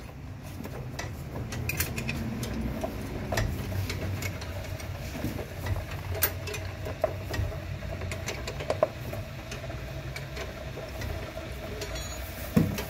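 Ratchet wrench clicking in short irregular spells as a nut is turned at the scooter's rear wheel, with metallic tool clinks, over a steady low hum.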